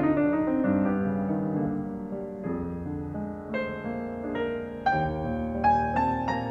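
Background piano music: a melody of single notes and chords following one another at a gentle pace.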